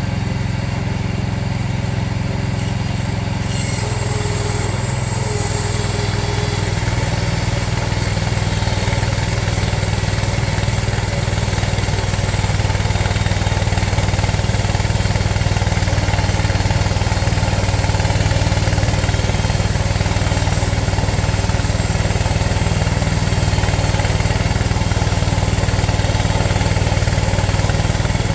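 Small gas engine of a Frontier portable bandsaw mill running steadily under load while the mill saws a board from a log. A hissy cutting noise joins in about four seconds in, and the sound gets a little louder partway through.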